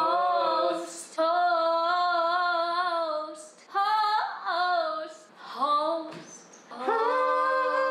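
A woman singing an unaccompanied ad-break jingle. She draws the words out in long held notes with vibrato, breaks off into shorter phrases in the middle, then holds a last note near the end.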